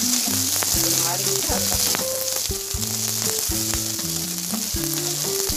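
Shallots with ginger and garlic sizzling in hot oil in a kadai, with a spatula scraping and tapping against the pan as they are stirred. There is a steady frying hiss throughout.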